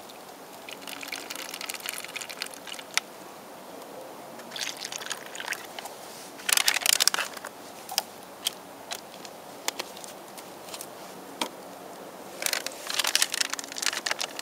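MRE instant-cappuccino drink pouch crinkling and rustling in several short bursts as it is handled, with scattered sharp clicks between the bursts.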